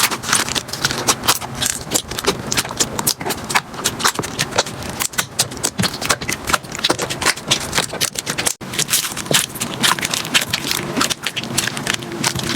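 Slime being squeezed and poked by hand, a dense, fast run of sticky clicks and crackles, with a brief break about two-thirds of the way through.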